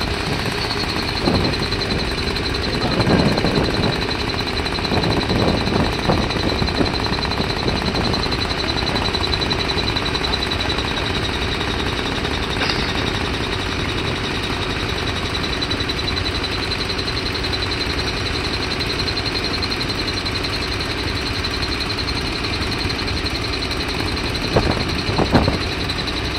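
Zhengyang CTQ-D100YA2 crawler drill rig drilling a blast hole in rock: the air-driven down-the-hole hammer's rapid, steady hammering, with a constant high whine over it.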